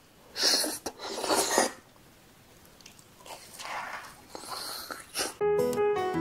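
Close-miked eating sounds: cheese-topped rice cakes being slurped and chewed, then a bite into a crumb-coated cheese ball, in four noisy bursts. A piano and guitar tune starts about five seconds in.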